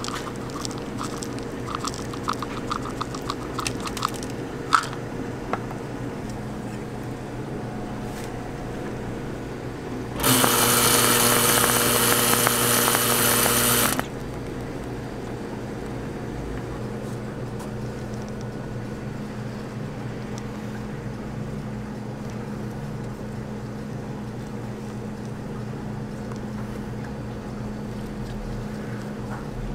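A run of small clicks in the first few seconds as seeds are poured from a plastic cup onto a whipped-cream-topped waffle. About ten seconds in, an electric whipped cream dispenser runs with a loud, steady hiss and hum for about four seconds and cuts off suddenly, over a constant low machine hum.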